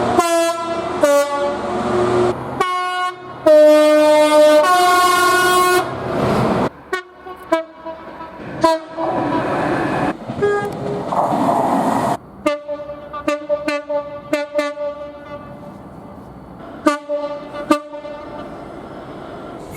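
Train horns from several different trains sounding one after another, sharply spliced together. Each is a loud chord-like blast, and some step between two notes. A stretch of passing-train rail noise sits in the middle, and the blasts grow fainter towards the end.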